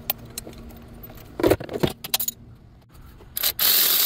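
Metal hand tools clinking and rattling, a socket wrench extension knocking against engine parts in a few irregular clicks. Loud electronic music comes in near the end.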